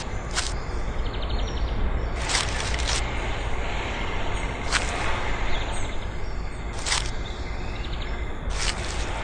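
Steady workshop background noise with a low hum, and short dry swishes every couple of seconds as hands rub, squeeze and crumble foundry moulding sand.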